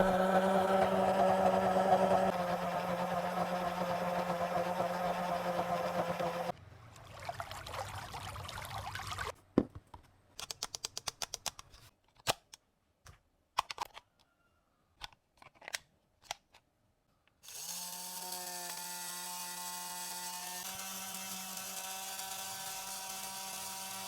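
Toy washing machine's small electric motor running with a steady hum, stopping after about six seconds. It is followed by scattered sharp plastic clicks, and the hum starts again near the end.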